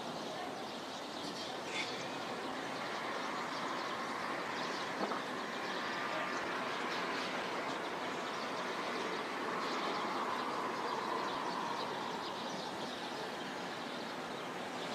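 Distant jet engine of an F-35A fighter heard as a steady rushing noise, swelling a little about ten seconds in and easing near the end.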